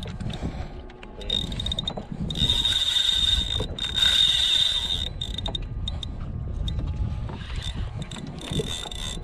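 Spinning fishing reel being cranked, its gears giving a steady high whir that comes in about a second in, is strongest for a few seconds, fades, and returns briefly near the end.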